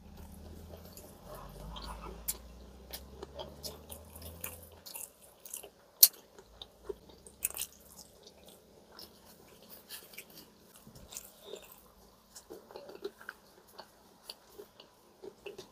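Quiet eating sounds: chewing, with small clicks and taps of fingers and food against a steel plate. A faint low hum lasts through the first five seconds.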